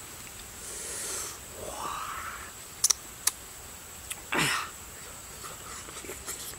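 Close-up eating sounds of a man pulling apart and eating ripe jackfruit bulbs: breathing, two sharp clicks about three seconds in, and a louder falling swish a little after four seconds.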